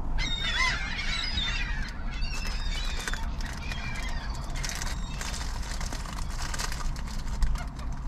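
A flock of gulls calling over one another, densest in the first two seconds, with more calls about three to four seconds in. A low steady rumble runs underneath.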